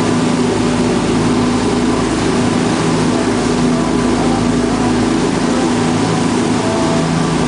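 Passenger boat's engine running steadily with a constant low drone, over the rushing wash of its churning wake.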